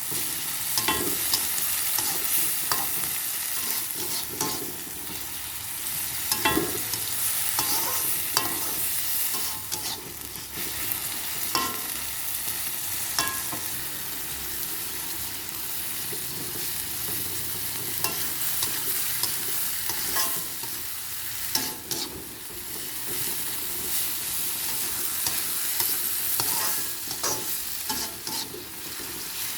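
Long beans, bean sprouts and tempeh sizzling in hot oil in a pan, with a steady hiss. A spatula scrapes and knocks against the pan at irregular moments as the stir-fry is stirred.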